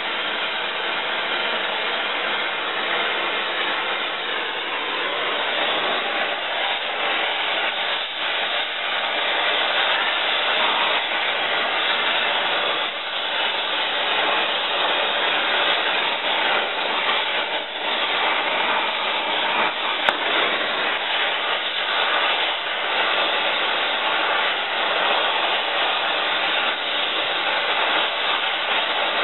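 Oxy-acetylene torch flame burning with a steady hiss, heating seized, rusted bolts. One sharp click comes about twenty seconds in.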